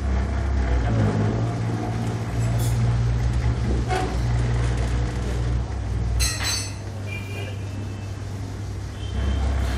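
Rim-straightening machine running with a steady low hum as it turns a bent steel car wheel rim against its roller. A few light metallic clinks are heard, and about six seconds in there is a brief high ring.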